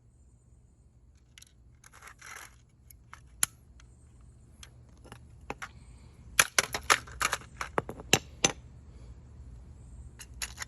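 Hard plastic of a smoke alarm's broken housing clicking and snapping as it is broken apart. A short scrape comes about two seconds in, then scattered clicks, then a dense run of sharp snaps from about six to eight and a half seconds in.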